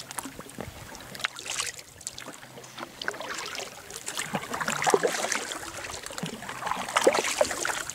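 Kayak paddle strokes through calm water: the blades dip in and pull with splashing, and water trickles and drips off them. The splashing grows louder around the middle and again near the end.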